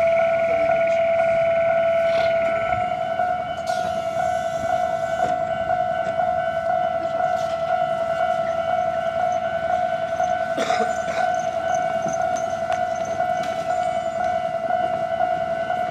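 Stopped Konan Railway 7000-series electric train giving off a steady high-pitched whine from its onboard equipment while it stands at the platform, with a few faint clicks and a brief knock about eleven seconds in.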